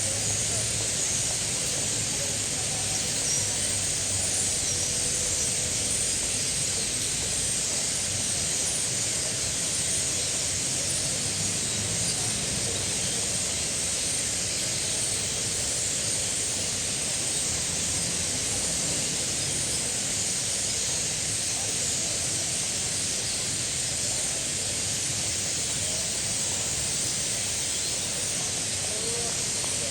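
A flock of starlings chattering at once, a steady, dense wash of many overlapping chirps with no single call standing out.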